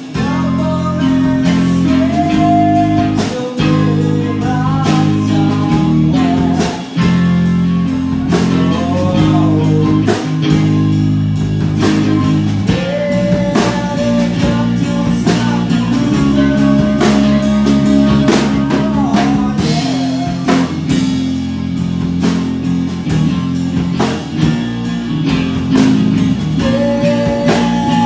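A live rock band playing: electric guitar and drum kit under a lead singer's vocals.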